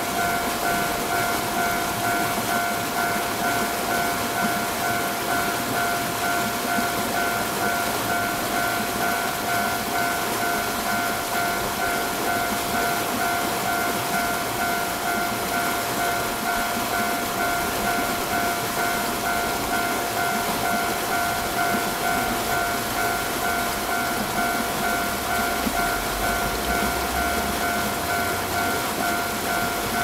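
Railway level-crossing warning bell ringing on and on, an evenly repeating ding at a fixed pitch, over a steady hiss. A low rumble comes in near the end.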